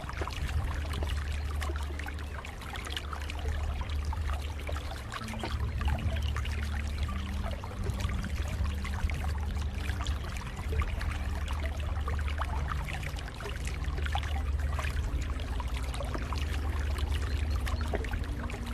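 Lake water flowing and splashing steadily, with a constant patter of small splashes over a deep rumble.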